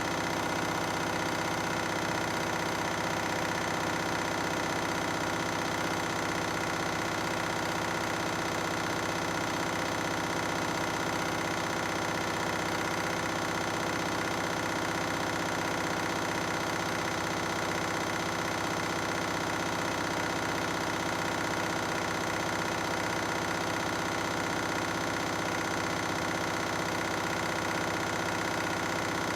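Washing machine on a 1600 rpm spin, the drum and motor running at a steady speed with a constant hum and whine.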